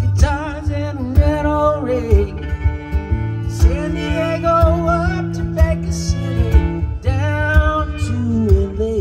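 Live acoustic guitar strumming a steady rhythm while a fiddle plays the melody with vibrato, in a country/bluegrass style.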